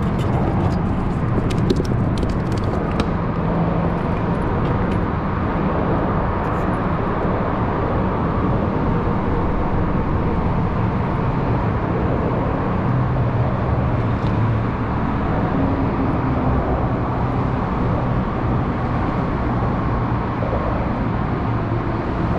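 Steady, loud road-traffic noise from vehicles crossing the bridge overhead, a continuous rumble with engine notes drifting up and down. A few small clicks in the first few seconds.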